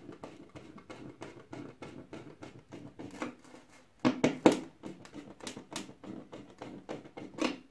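Handling noise from cable and fittings being worked by hand: a steady run of small clicks and rustles, with a few louder knocks about four seconds in and again near the end.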